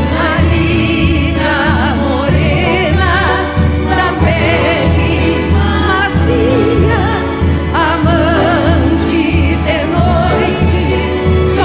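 Several women singing together with vibrato, backed by a symphony orchestra, accordion and guitar, over a steady low beat.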